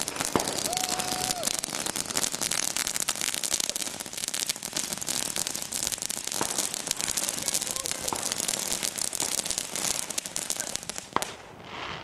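Ground firework spraying sparks, with a dense, steady crackle of rapid pops that dies away about eleven seconds in as the firework burns out.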